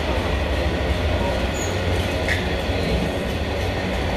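Diesel train running with a steady low rumble.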